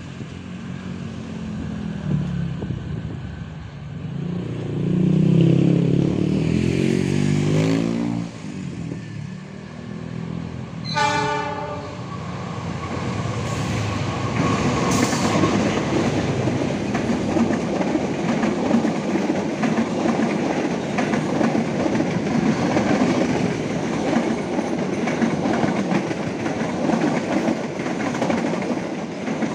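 Indonesian passenger train hauled by a KAI diesel locomotive: long horn blasts over the first eight seconds as it approaches, a short higher blast about eleven seconds in, then the locomotive and coaches passing close by with a steady rumble and wheel clatter over the rail joints.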